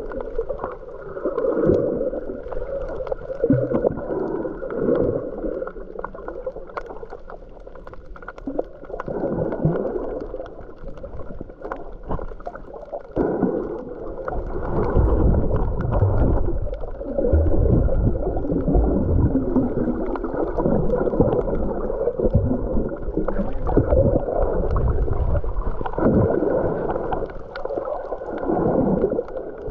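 Muffled underwater water movement: gurgling and sloshing around the camera, with uneven low rumbling surges and a few faint clicks.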